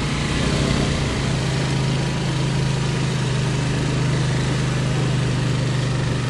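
Motorcycle engine running steadily at low speed, a constant low hum with a hiss over it, while the bike rides through floodwater.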